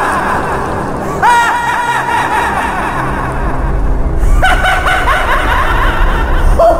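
A voice actor's villainous laughter, in repeated ha-ha runs, with layered voices overlapping in several bursts. A deep rumble swells just before the middle.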